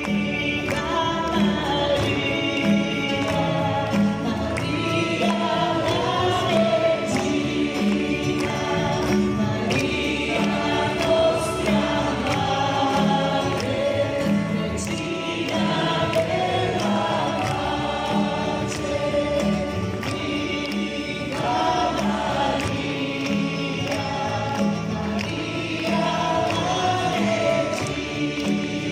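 Live worship music: a band and a crowd of voices singing a gospel-style song together, with hands clapping along to the beat.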